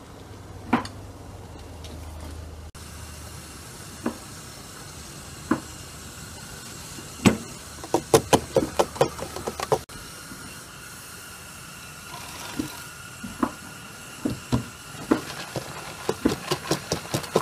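Wire hand whisk beating thick cake batter in a stainless steel bowl set over a steaming pot, the tines clicking quickly against the metal, about five or six strokes a second, in runs with pauses between. A steady hiss of steam underneath.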